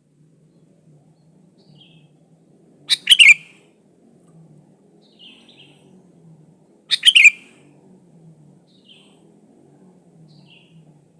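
Sooty-headed bulbul (kutilang) calling: two loud, short phrases of several quick notes about four seconds apart, with fainter single notes between them.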